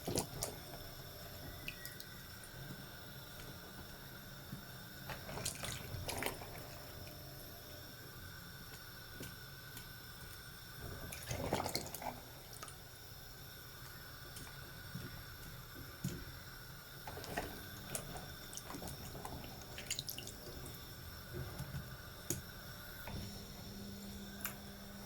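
Pieces of yam dropped into a pot of liquid, making scattered splashes and knocks every few seconds, the loudest about halfway through, over a steady hum.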